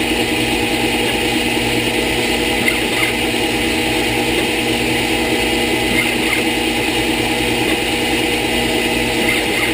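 CNC-converted Wabeco D2000 lathe running a G76 threading cycle on 6061 aluminium: a steady hum from the spindle motor and stepper drives, with a faint short sound recurring about every three seconds as the threading passes repeat.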